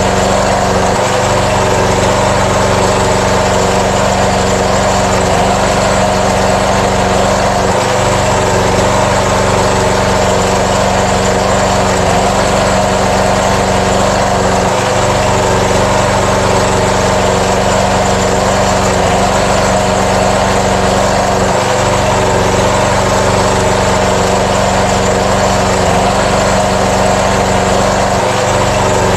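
5 kVA air-cooled diesel generator running steadily at constant speed.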